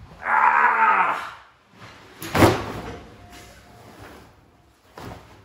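A man's loud, drawn-out strained groan, falling in pitch, as he heaves up something heavy, followed about a second later by one heavy thud of a stack of hardcover books set down on a table.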